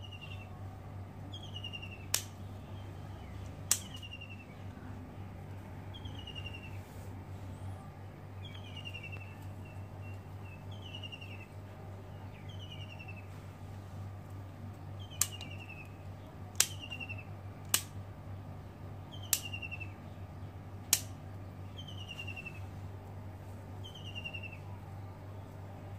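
A bird repeats a short falling chirp every one and a half to two seconds. Seven sharp snips of hand pruning shears cut through it, two near the start and five close together in the second half.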